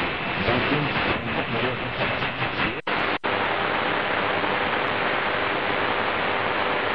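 Shortwave static hissing from a Qodosen SR-286 portable radio's speaker, fluttering at first. About three seconds in it cuts out twice very briefly as the radio is retuned, then it settles into a steady hiss: the station on this frequency has gone off the air.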